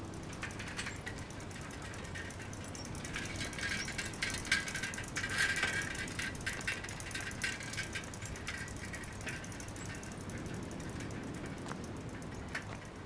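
Bicycle riding past with rapid mechanical ticking and clicking, loudest about four to seven seconds in and fading near the end.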